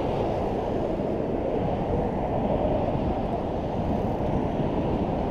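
Steady rumbling noise of city traffic, mixed with wind on the microphone.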